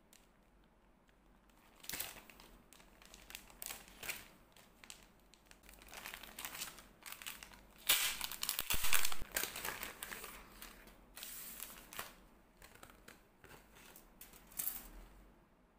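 Thin polypropylene packaging bag of a plastic model kit crinkling and rustling as it is handled and opened, in irregular bursts that are densest and loudest about eight to nine seconds in.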